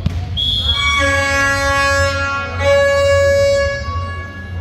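A short, high whistle, then a long, buzzy horn tone held for about three seconds, shifting slightly partway through before it fades.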